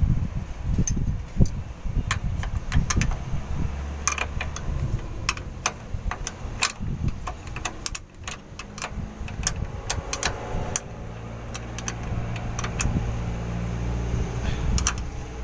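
Scattered clicks, knocks and light metal clinks of hands and tools screwing a diesel-filled spin-on fuel filter onto its mount, with a steady low hum joining about halfway through.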